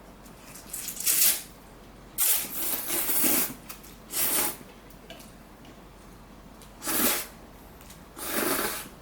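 Instant kimchi ramen noodles being slurped up from the bowl in about five short, loud, hissing slurps, the longest a little past two seconds in.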